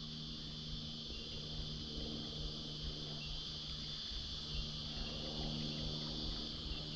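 Steady, high-pitched drone of an insect chorus in riverside bush, with a low steady hum beneath it.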